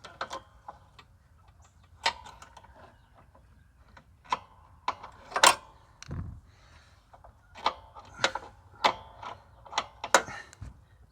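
Screwdriver and metal mower parts clinking while prying at the blade-engagement tensioner: a dozen or so irregular sharp clicks and clanks, with a couple of dull thumps.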